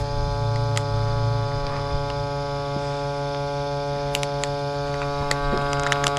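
Vacuum sealer's pump running with a steady hum, drawing the air and moisture out of a bag of squirrel meat.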